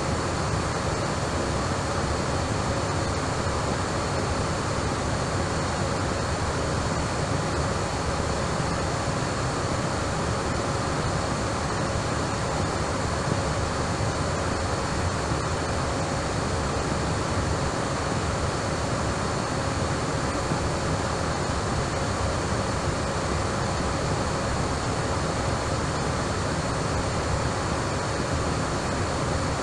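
Steady rushing noise with a faint, constant hum and whine, unchanging throughout.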